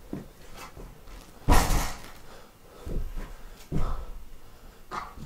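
Several knocks and thumps in a small room. The loudest comes about a second and a half in, with quieter ones near three and four seconds and again near the end.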